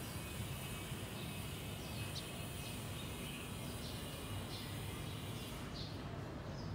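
Scattered short bird chirps, roughly one a second and irregular, over a steady low background rumble.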